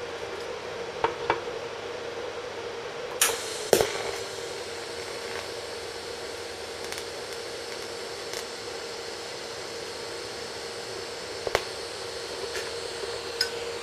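TIG welding arc tacking a corner of a cast-metal mower transaxle cradle with stainless filler rod: a steady hiss over a constant hum, broken by a few sharp clicks, the two loudest about three and a half seconds in and another near the end.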